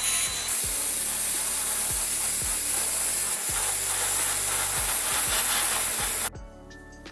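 Loud steady hiss of a workshop tool working the diecast toy van, over background music with a steady beat; the hiss cuts off suddenly about six seconds in, leaving only the music.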